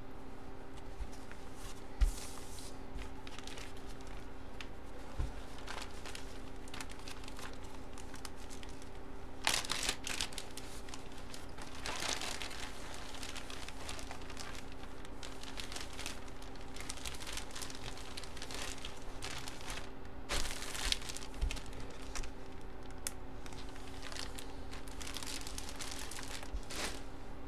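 Plastic wrapping crinkling in scattered bursts as it is handled, over a steady low hum.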